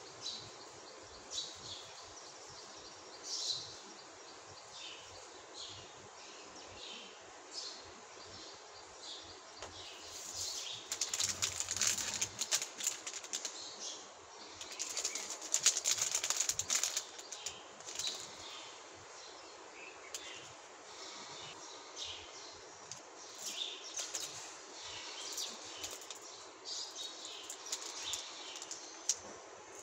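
Plastic candy wrappers crinkling loudly as Cadbury Gems packets are handled and opened, in dense bursts from about ten seconds in to about seventeen seconds in. Softer rustles continue, and short high chirps recur every second or two in the background.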